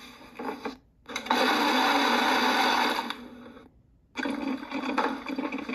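Ninja personal blender motor running as it blends a berry protein shake, in two stretches with a brief break between them.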